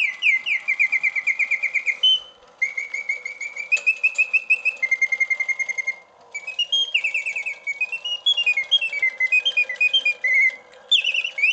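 Antique Bontems mechanical singing bird cage playing its song on continuous setting. Its bellows-blown whistle trills in rapid repeated notes and rising and falling runs, with brief breaks between phrases, strong and loud. Under it runs the faint steady whir of the brass clockwork.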